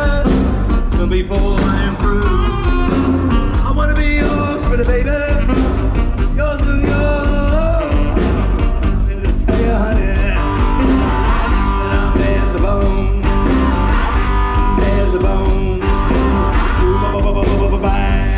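Live rock band playing loud amplified music over a PA, a singer's voice over electric guitars and a steady beat.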